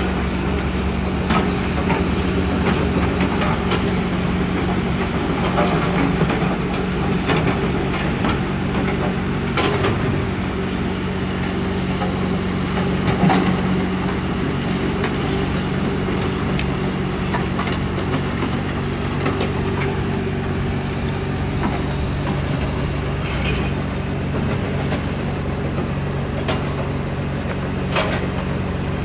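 Tracked hydraulic excavator's diesel engine running steadily as the bucket digs through demolition rubble, with scattered knocks and clatter of broken bricks and concrete.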